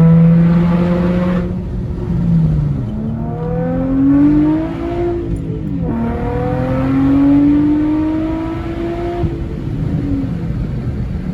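Exhaust of an Infiniti G35's 3.5-litre VQ V6 with test pipes in place of the catalytic converters, loud and revving up and down several times, its pitch climbing and falling away.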